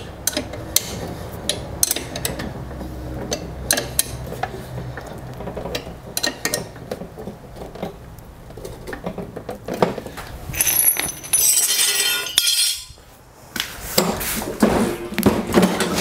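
Wrench clinking on the blade bolt and the steel mower blade while the bolt is tightened: a string of sharp metallic clicks and clinks. About ten seconds in there is a brief hissing scrape, then more clinks.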